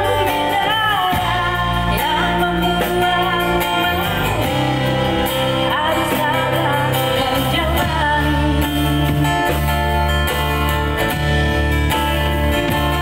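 Live street band: a woman singing into a microphone through a PA, with acoustic guitar and a drum kit.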